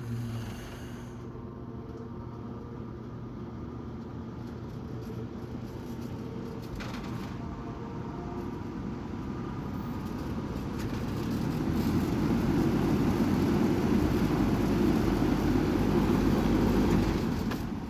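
A 20-inch Dayton (Lakewood P24) metal-bladed box fan running, with a steady rush of air. The rush grows louder through the second half and falls away again near the end.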